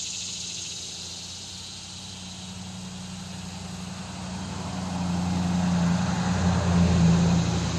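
A low, steady engine hum, like a motor vehicle, growing louder over the second half, over a constant high trill of insects.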